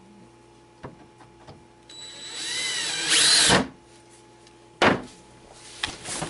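DeWalt 20V cordless drill running for about a second and a half, its speed rising and then falling as the trigger is squeezed and let off. About a second later comes a sharp click, then a few lighter knocks.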